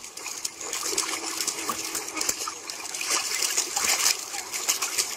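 Water splashing and sloshing in a small plastic wading pool as a vinyl doll is moved through it, in short irregular splashes.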